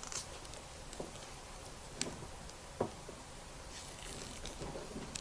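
Vinyl electrical tape being pulled off the roll and wound tightly around a cable connector: faint rasping as it peels, with a few small clicks and taps of handling.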